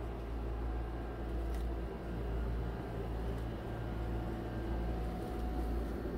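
Steady low hum and rumble of a hotel room's air-conditioning unit fan running, with a faint click about a second and a half in.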